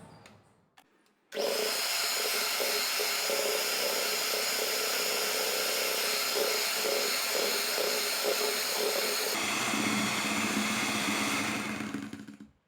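Electric hand mixer whirring steadily as it beats eggs, sugar and oil into cake batter, starting about a second in; its tone shifts around nine seconds in and it switches off just before the end.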